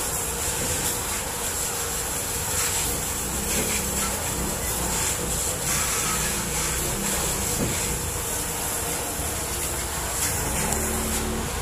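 Steady rushing noise of a large house fire burning, with scattered crackles and faint voices under it.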